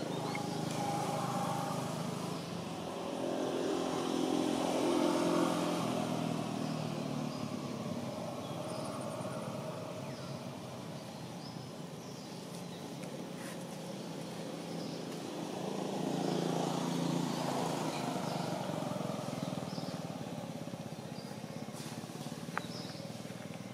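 Motorbike engines passing by, swelling and fading twice: about four seconds in and again about sixteen seconds in, with a steady traffic hum between.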